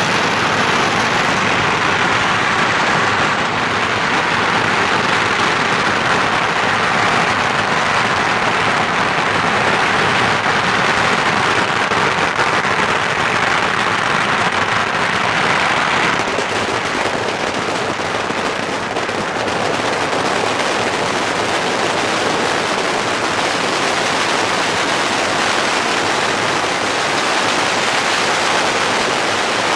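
Strings of firecrackers going off in a continuous, dense crackle of rapid bangs that blend into one another.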